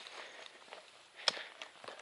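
A single sharp tap or knock about a second and a half in, over faint steady hiss and a few light ticks.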